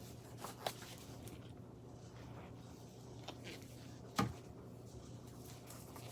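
Quiet room with a steady low hum and a few short, light clicks or taps, the loudest about four seconds in.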